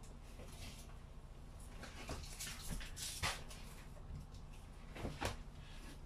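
Light kitchen clatter: scattered clinks and knocks of dishes and cupboard doors being handled, with a few sharper clicks about three and five seconds in.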